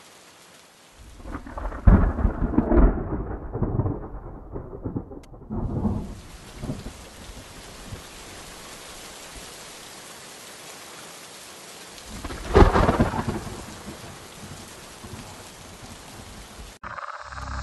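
Steady rain with thunder: a long rolling peal starting about a second in, and a second clap about twelve seconds in. The rain cuts off suddenly near the end.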